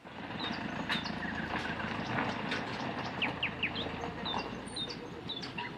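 Small birds chirping in many short, high calls over a steady low background noise.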